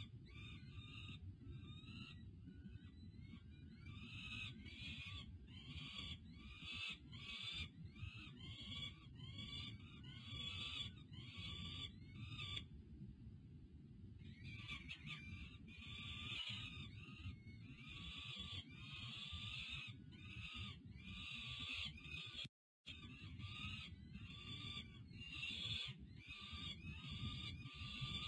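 Peregrine falcon chicks' begging calls: short, harsh cries repeated about two a second, with a pause of a couple of seconds about halfway through, over a steady low rumble.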